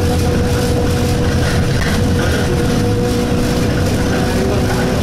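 Interior of an Alexander Dennis Enviro200 single-deck bus under way: a steady engine drone with a constant vibration hum, the annoying vibration noise of this bus. A little over halfway through a whine glides upward in pitch.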